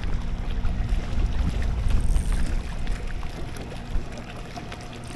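Strong wind buffeting the microphone: a low, gusting rumble that eases a little about four seconds in.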